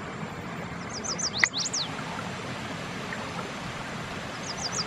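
A bird calling in two quick runs of high, sharp sweeping notes, about a second in and again near the end, over the steady rush of river water; a single short click between the first run's notes.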